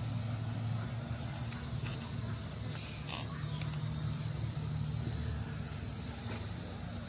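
Insects trilling, a high rapid pulsing buzz, over a low steady hum.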